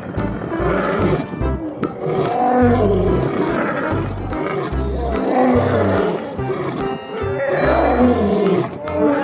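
Big cat roaring in a series of drawn-out, rising-and-falling calls, over background music with a steady bass beat.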